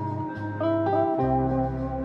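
Squier Jazzmaster electric guitar playing a clean single-note melody through a delay pedal, each note trailed by echoes. Sustained low bass notes, changing every half second or so, run underneath.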